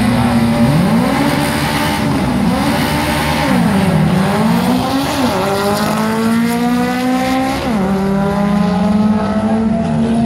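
Drag-racing cars' engines accelerating hard down the strip. The engine pitch climbs and drops back several times, most sharply near the end, as the cars shift gears.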